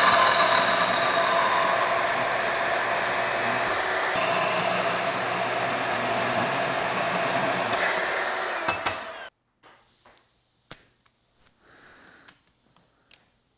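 DeWalt portable band saw running and cutting through metal exhaust header tubing, a steady whine with the rasp of the blade in the metal, shutting off suddenly about nine seconds in. A few faint clicks follow.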